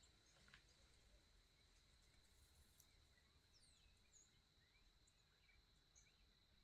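Near silence, with a faint steady high insect drone and scattered faint, short bird chirps.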